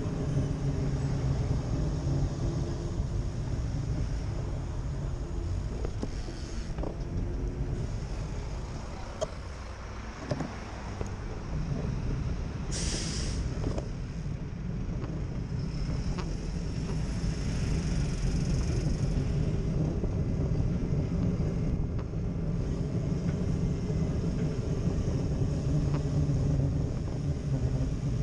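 Road traffic on a busy city street heard from a moving bicycle: a steady low rumble of engines and tyres, with a short loud hiss about halfway through.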